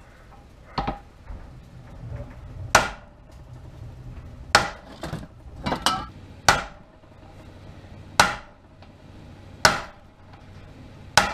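Hammer striking a steel driver held against a U-joint bearing cap on a driveshaft yoke clamped in a vise: about nine sharp metal-on-metal blows, one every second or two, driving the cap out of the yoke.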